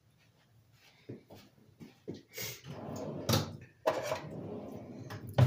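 Kitchen handling clatter: dishes and utensils knocking and scraping in a quick, irregular string of sounds after the first second, with one sharp knock near the end.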